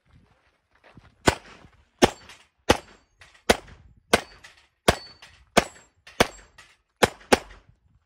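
Handgun firing about ten shots at a steady pace, roughly one every two-thirds of a second, with the last two fired close together near the end.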